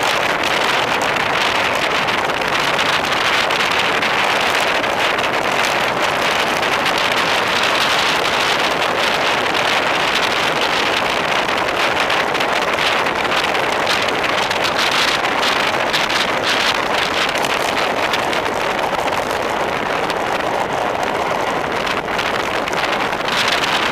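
Wind rushing over the microphone of a camera on a road bike descending at speed: a steady, loud rush.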